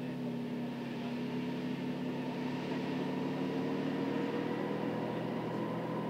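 Type 90 tank's ten-cylinder two-stroke diesel engine running steadily as the tank approaches, its note rising slightly and growing gradually louder.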